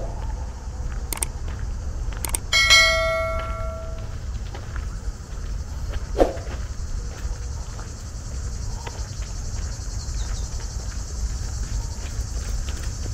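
A single bell strike about two and a half seconds in, ringing with several tones at once and fading over about a second and a half, over a steady low outdoor rumble with a few sharp clicks.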